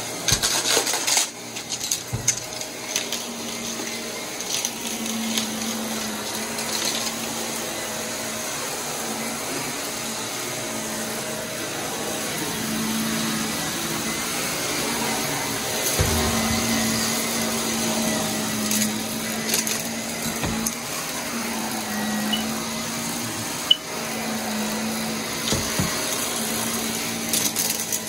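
Blue corded stick vacuum running steadily while pushed back and forth over carpet, its motor hum rising and falling with the strokes, with a few sharp knocks along the way, the loudest near the end.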